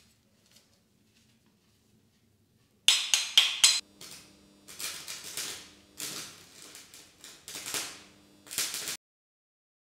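A few faint metal clicks. Then, about three seconds in, an electric arc welder's arc is struck on steel: loud crackling and sputtering with a low buzz under it. The arc comes in stuttering spurts, breaking off and restarting several times, and cuts off suddenly near the end. The welder is homemade from computer UPS transformers, and the maker judges that it works but is short of power.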